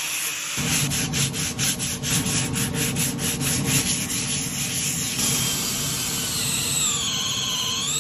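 Sandpaper rubbed by hand across the end grain of a wooden log in quick strokes, about five a second, after a brief hiss of an angle grinder's sanding disc at the very start. In the last few seconds a wavering squeal rises and falls over the rubbing.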